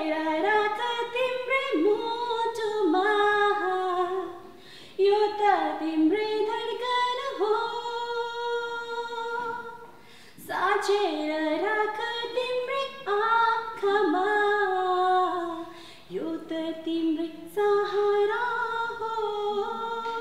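A woman singing unaccompanied, in long phrases with brief breaks for breath about a third and two-thirds of the way through and once more near the middle.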